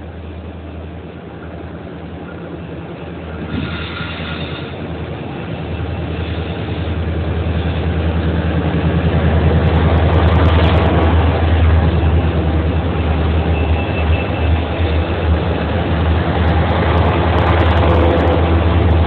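Four CL-class EMD diesel-electric locomotives working together, their engines growing louder as the train approaches and then running loud and steady as the units pass close by. The sound is a deep, steady drone.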